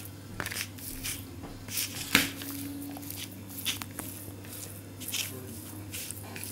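A bare hand mixing and squeezing cooked rice with boiled tuna on a plastic plate: soft, irregular squishing and crackling, with one sharper click about two seconds in. A steady low hum runs underneath.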